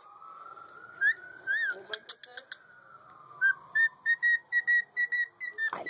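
Cockatiel whistling: two short rising-and-falling chirps about a second in, then a run of short, evenly pitched whistle notes at about four a second in the second half.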